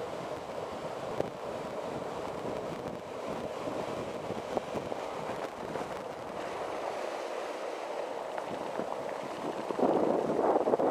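Kite buggy rolling across firm beach sand, heard from a camera on its front yoke: a steady rush of wind on the microphone and wheel noise, with a few light clicks. It grows louder near the end.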